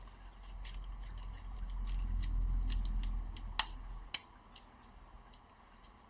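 Handling noise from working inside an open laptop while its battery is connected: a low rubbing rumble for the first few seconds, with a string of small sharp clicks, the loudest about three and a half seconds in.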